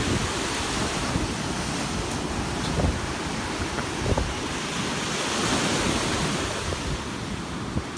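Small lake waves breaking and washing up onto a sandy shore in a steady surf wash. Wind gusts rumble on the microphone.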